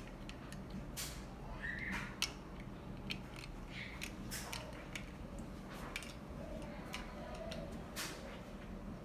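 Plastic Lego pieces clicking and clattering as they are handled and snapped together, a dozen or more sharp irregular clicks over a low steady hum.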